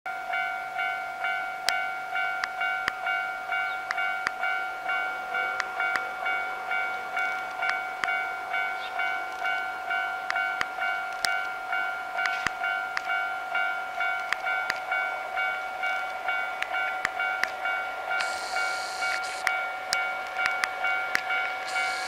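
Japanese railway level-crossing warning bell ringing steadily, about two dings a second, as a train approaches. A brief high hiss comes in near the end.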